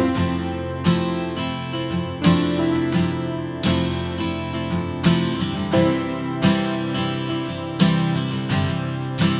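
Background music: gentle acoustic guitar strummed in a steady rhythm.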